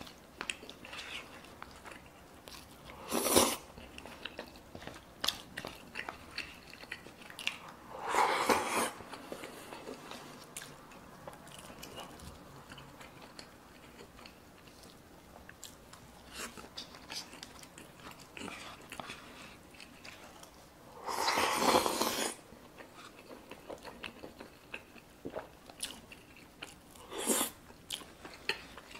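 Close-miked eating sounds: a person chewing and biting food, with small crunches and wet mouth clicks. Four louder bursts, each a second or less, come about 3, 8, 21 and 27 seconds in.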